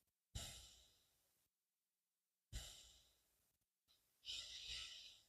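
Near silence broken by three faint short sounds: two soft, sudden ones and a longer breathy one, like an exhale, near the end.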